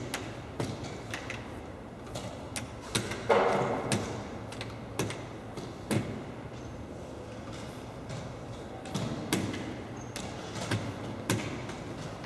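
Irregular sharp clicks and taps of blitz draughts play: pieces set down on the boards and game clocks being pressed, about one or two a second, over a low hum. A brief, louder scrape or rustle comes about three seconds in.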